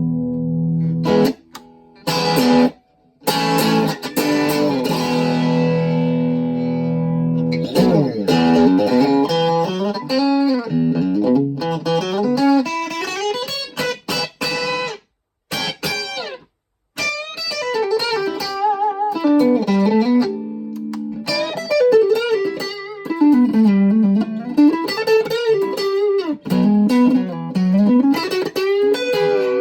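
Schecter OL-PT-TH thinline electric guitar played through a VOX Mini5 practice amp and picked up by a phone microphone. It opens on a held chord, breaks off twice for short pauses, and otherwise plays single-note lines with string bends and vibrato.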